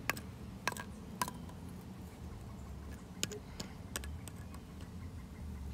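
A handful of short, sharp clicks at irregular intervals, most in the first four seconds, over a steady low rumble.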